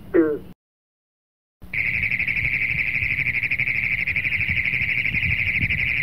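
A green frog's short call right at the start, then after about a second of silence a Great Plains toad's long, loud trill. From about two seconds in it holds steady in pitch, made of rapid, even pulses.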